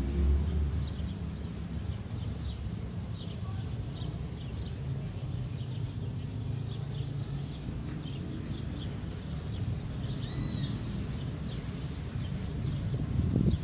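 Small birds chirping in the trees, with many short high chirps and a few louder arched calls a little over ten seconds in, over a steady low outdoor rumble. There is a louder low rumble right at the end.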